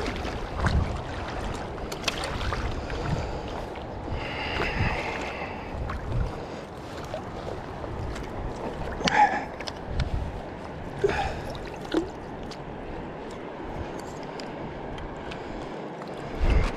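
River water running over shallows, with irregular splashes and sloshing from a landing net and a netted brown trout being handled in the water.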